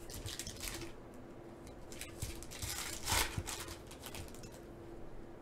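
Foil trading-card pack crinkling and tearing as it is pulled open by hand, a few short irregular rustles, the loudest about three seconds in.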